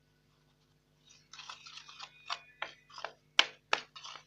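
Spoon stirring wheat flour and body lotion together in a container: crunchy scraping strokes starting about a second in, with a few sharp clicks of the spoon against the container.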